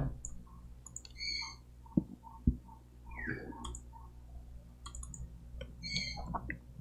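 Two sharp clicks about half a second apart, over a low steady hum with a few faint high chirps.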